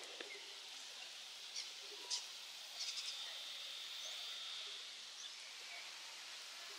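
Faint outdoor ambience: a steady hiss with a few short, high chirps and a thin high buzz for a couple of seconds near the middle.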